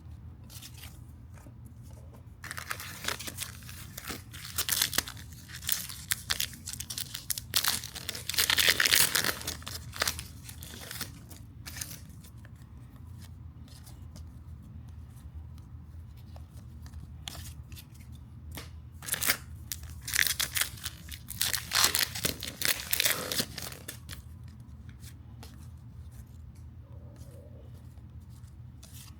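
Trading-card pack wrappers being torn open and crinkled. The sound comes in two spells of tearing and rustling, with quieter card handling between them.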